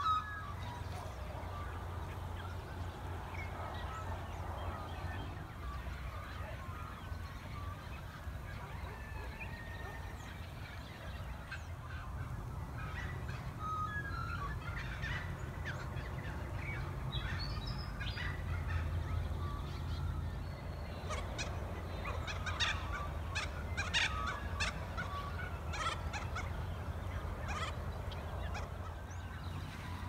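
Birds calling in the early morning: many short scattered calls that grow busier through the second half, over a steady low rumble.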